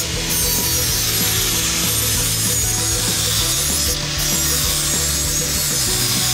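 Leaf-spring steel machete blade being ground to an edge with an abrasive disc: a steady rasping hiss over a low motor hum, dipping briefly about four seconds in.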